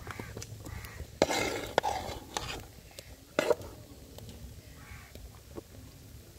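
A big spoon scraping and knocking against a cooking pot while a mixture is stirred and scooped. There are a few sharp clacks with scraping between them, busiest from about one to three and a half seconds in.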